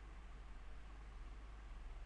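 Faint steady hiss with a low hum underneath: the recording's background noise, with no other sound.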